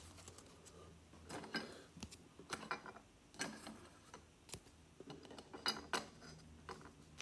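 Hard plastic card holders clicking and tapping as they are picked up and set on display stands: faint, irregular clicks.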